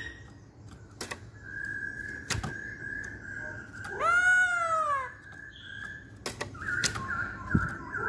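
Black-throated laughingthrush calling in its cage. It holds a thin whistle, then gives one loud, nasal, arched call that rises and falls about four seconds in, then a quick run of short whistled notes near the end. A few sharp clicks are scattered between the calls.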